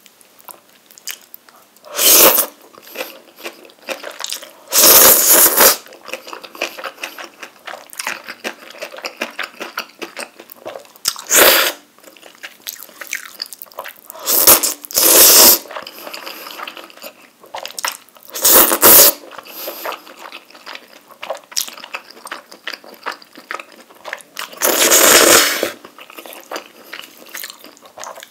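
A person eating ramen noodles and rice cakes: loud slurps of noodles come every few seconds, about seven in all, with wet chewing and small mouth clicks in between.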